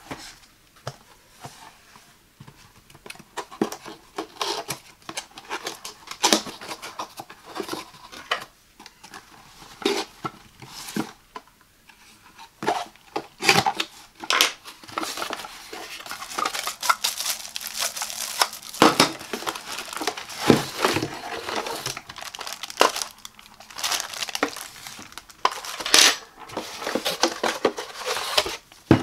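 Hands handling and opening a cardboard product box: a run of sharp taps, knocks and scrapes of cardboard sliding and flaps opening, busier in the second half, with crinkling of the plastic wrapping on the parts inside.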